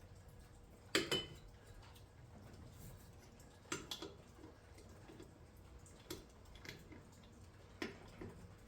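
Sharp metallic clinks of a tool on a temporary spare's lug nuts as they are snugged up, in small groups of one to three a few seconds apart.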